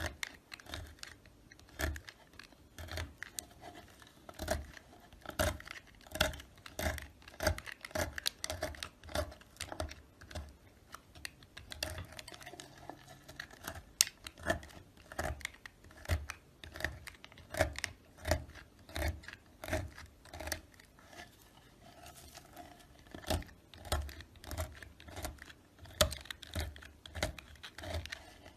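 A knife cutting into soap over and over: short, sharp cuts about one or two a second, some louder than others.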